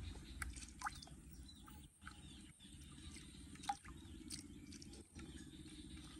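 Faint splashing of water in a plastic tub as a baby monkey paddles and swims about, with a few short high chirps.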